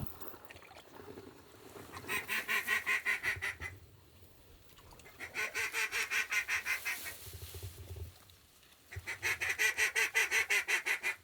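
A hand-blown waterfowl call sounded in three runs of quick, evenly spaced notes, each run lasting about one and a half to three seconds.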